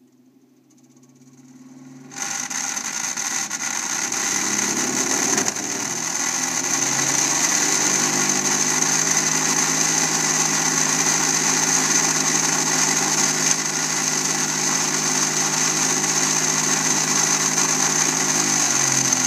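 A furnace's small motor starts up about two seconds in and runs loudly with a steady hum and a high whine, then winds down near the end. It is noisy from vibration, which the owner puts down to a part on the motor that is not centred.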